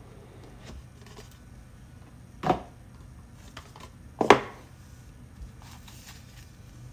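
Cardboard packaging handled on a wooden table as a sleeve comes off a box: two short loud scuffs, about two and a half seconds in and a louder one near the middle, amid light rustling and small taps.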